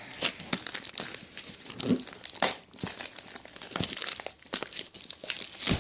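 A mail package being crinkled and torn open by hand: irregular crumpling and crackling with a few louder snaps.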